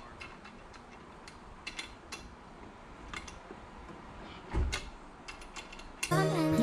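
Scattered small metal clicks of an Allen key turning a bolt in a SeaSucker roof-bar mount, with a dull thump about four and a half seconds in. Music starts just before the end.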